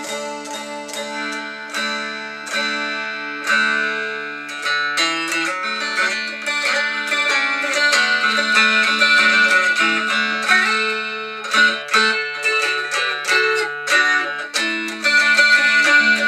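Homemade electric mountain dulcimer played through its built-in amplifier and speaker. A picked instrumental tune runs over a steady low drone and grows louder about six seconds in.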